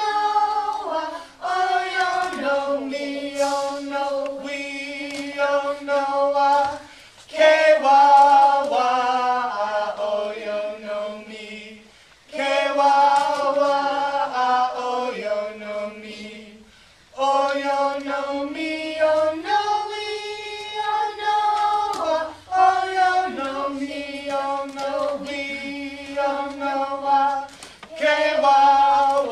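A group of children and a man singing a Chumash Native American passing-game song in unison, in short repeated phrases with a brief break about every five seconds.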